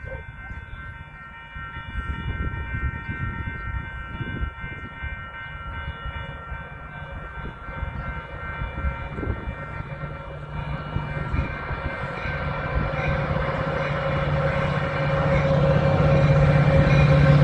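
Metra commuter train's diesel locomotive approaching, its engine drone growing steadily louder over the last several seconds. Steady high ringing tones from the grade-crossing warning bells sound throughout.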